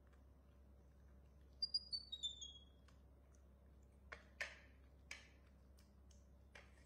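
A quick run of about five short, high chirps, each falling in pitch, about one and a half seconds in, followed later by a few light, sharp clicks and taps as corn and plates are handled.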